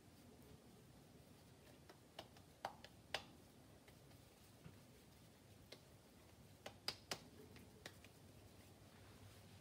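A few short soft slaps as a floured raw hamburger patty is patted between the palms, in two clusters, about two seconds in and again about seven seconds in, over near silence.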